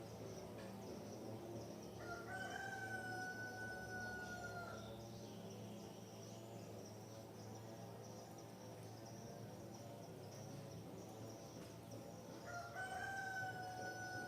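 A rooster crowing twice, about ten seconds apart. Each crow is one long, drawn-out call that holds its pitch and drops slightly at the end, with the second still going at the end. A steady high insect chorus runs beneath.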